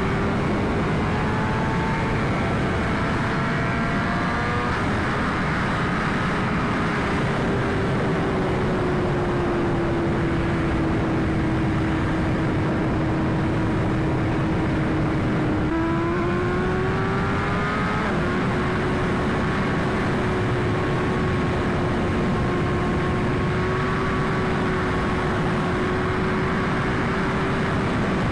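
2021 BMW S1000RR inline-four engine under way: its note climbs for the first few seconds, eases off and sags slowly, then jumps and climbs again about two-thirds through before holding steady. Heavy wind rush on the helmet mic runs under it.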